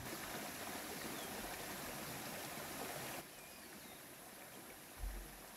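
Steady rushing, stream-like outdoor ambience that drops suddenly to a quieter level about three seconds in, with a few faint high chirps over it and a soft low thump near the end.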